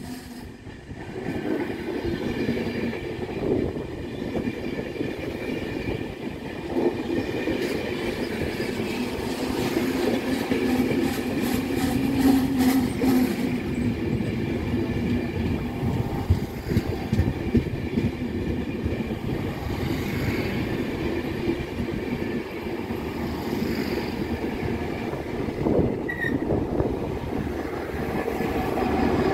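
Enterprise push-pull passenger train running through the station without stopping: a long rumble of wheels on rail with clicking over the rail joints as the carriages pass. Near the end the Class 201 diesel locomotive at the rear passes, and the sound grows louder.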